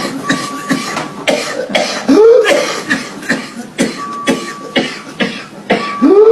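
A person coughing repeatedly: short sharp coughs in quick bursts, with a longer rising-and-falling voiced sound about two seconds in and again near the end, as examples of different kinds of cough.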